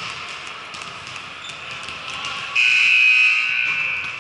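A referee's whistle blown in one long blast starting about two and a half seconds in, high and steady, then fading.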